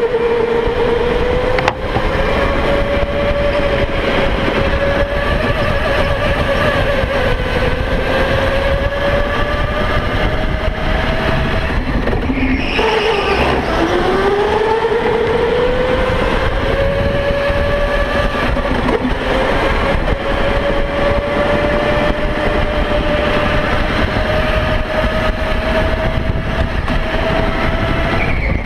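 Electric go-kart motor whining at speed, heard from on the kart. Its pitch slowly rises and falls with speed, drops sharply about halfway through as the kart slows for a corner, then climbs again as it accelerates. A steady low rumble runs underneath.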